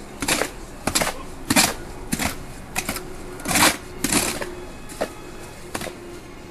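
Long-handled tool scraping and chopping through wet stucco mix in a metal wheelbarrow, about ten irregular strokes that stop near the end.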